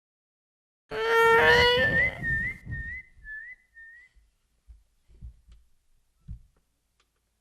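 A dubbed comedy sound effect: a loud buzzy tone, then a warbling whistle of about seven short rising chirps that fades out, followed by a couple of soft low thumps.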